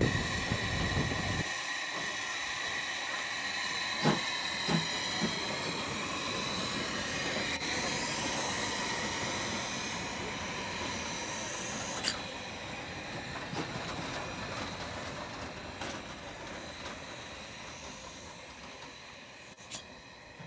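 Steam locomotive Mh.1 of the 760 mm narrow-gauge Waldviertelbahn standing, hissing steam with a steady high ringing tone and a few sharp metallic clanks, the hiss fading slowly toward the end. For the first second and a half, the rumble of the carriages running on the track.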